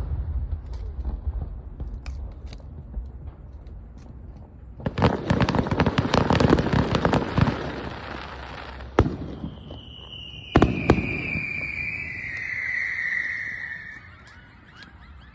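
Aerial firework shells going off: a big boom dies away, then a few seconds of dense crackling bursts, two sharp bangs, and a falling whistle lasting a few seconds near the end.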